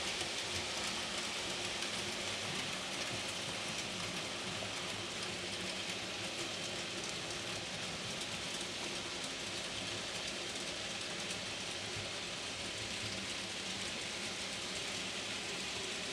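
N gauge model freight train, a Class 66 diesel locomotive hauling a long string of wagons, running along the layout track: a steady rolling hiss with faint rapid clicking from the wheels on the rails.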